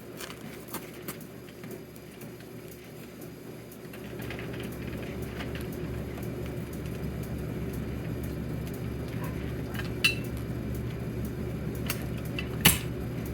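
Keys clinking and a fire alarm pull station being handled while it is reset, with scattered small clicks and one loud sharp click near the end. A steady low hum runs under it, louder from about four seconds in.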